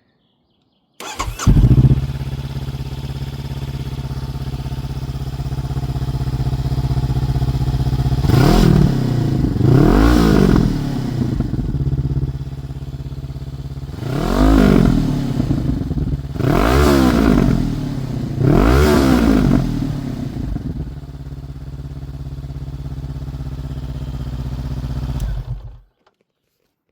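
Honda CB500F parallel-twin motorcycle engine breathing through a Black Widow 300 mm chrome oval exhaust with its baffle removed. It starts about a second in, idles, is blipped five times with quick rises and falls in pitch, and is then switched off near the end.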